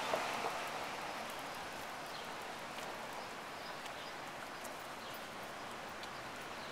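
Steady outdoor noise of street traffic, easing off slightly over the first few seconds, with a few faint light clicks scattered through it.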